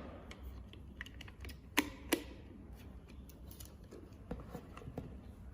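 Scattered light plastic clicks and knocks from handling the wireless MPG pendant at its battery compartment, which holds two AA batteries; the loudest pair comes about two seconds in.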